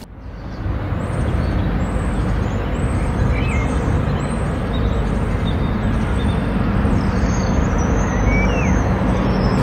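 Steady outdoor ambience, a dense even wash of noise heaviest in the lows, fading in over the first second, with a couple of faint short chirps.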